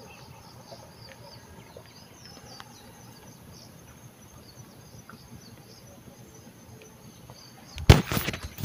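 Quiet riverside ambience with faint, scattered chirps of insects and birds. About eight seconds in, loud rustling and knocking as the phone is picked up and handled.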